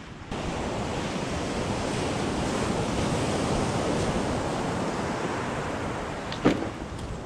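Surf breaking and washing up a sandy beach, with wind buffeting the microphone. There is one sharp click about six and a half seconds in.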